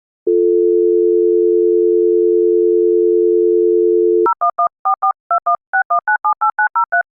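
US landline dial tone, a steady two-note hum, held for about four seconds and then cut off by a quick run of DTMF keypad tones, about fifteen short two-note beeps in small groups and then a longer run, as an international number is dialled.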